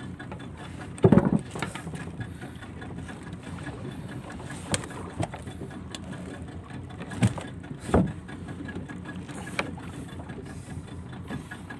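Small fishing boat's engine running steadily, with a few sharp knocks over it; the loudest knock comes about a second in.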